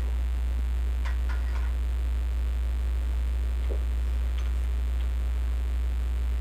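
Steady low electrical hum, with a few light clicks about a second in and again near the middle.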